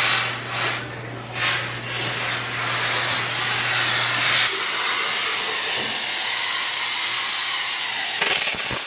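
Beamnova 1500-watt steam cleaner hissing as its wand jets steam onto fabric upholstery: short repeated bursts over a steady low hum at first, then a continuous hiss from about four and a half seconds in.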